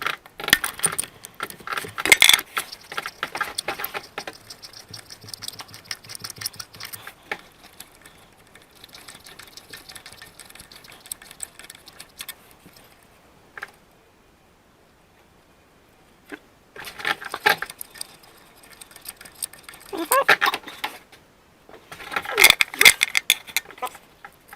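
Metal hand tools and small parts clinking and rattling in several bursts of sharp clicks, with a few seconds of near quiet in the middle.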